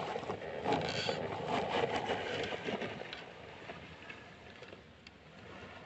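HB ZP1001 RC crawler's electric motor and geartrain whirring as its tyres roll over dry grass and dirt, fading after about three seconds as the truck moves away.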